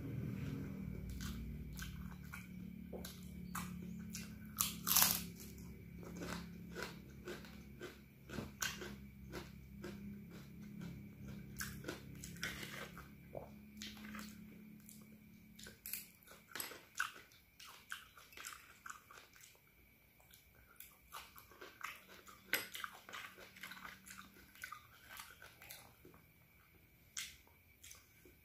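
Close-up eating sounds: a person chewing a mouthful of fried instant noodles, many small wet clicks and crunches at an irregular pace. A faint low hum runs under it and stops about halfway.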